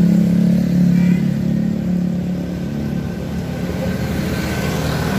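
A motor vehicle engine running with a steady low hum, mixed with road noise.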